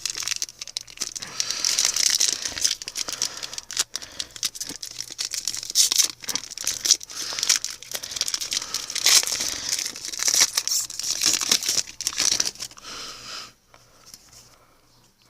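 Plastic wrapper of a baseball card pack being torn open and crinkled by hand: a busy, irregular crackling that dies down near the end.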